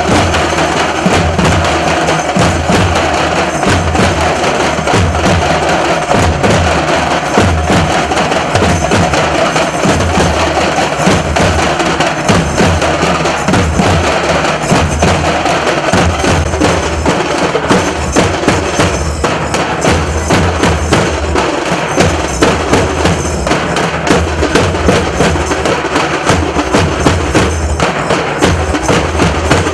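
Nasik dhol ensemble drumming: deep, booming dhol beats under a fast, dense clatter of tasha strikes, loud and continuous.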